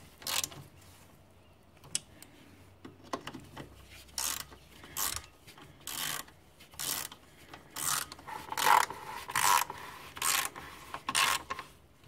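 Socket ratchet clicking on its back-swings as bash-guard bolts are tightened by hand, in a run of short ratcheting strokes. A few faint strokes come first, then louder ones at about one and a half a second from about four seconds in.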